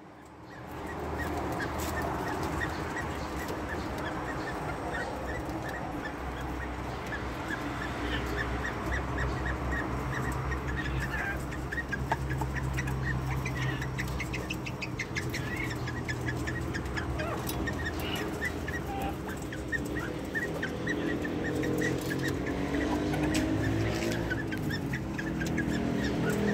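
Caged crested quail calling with short, repeated high chirps, over a steady low hum.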